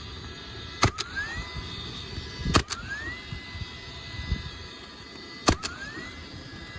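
Nail gun driving nails into roof shingles: three sharp double cracks, each followed by the gun's motor whining up in pitch and then holding steady as it readies for the next shot.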